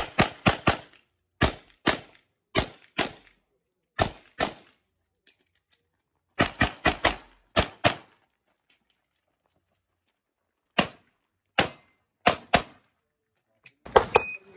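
Handgun shots fired in quick strings and pairs, with gaps of a second or more between groups and a long pause in the middle. Near the end an electronic shot-timer beep sounds and rapid firing starts again.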